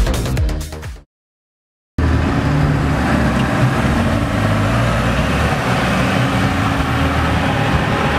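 A dance music track cuts off about a second in; after a second of silence, a tractor engine runs steadily as the tractor drives across the field towing a trailed crop sprayer.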